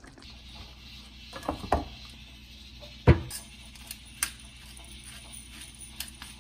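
Rice cooking, heard as a steady hiss of steam, with a thin high whine joining about three seconds in. A few sharp clicks and knocks break through, the loudest about three seconds in.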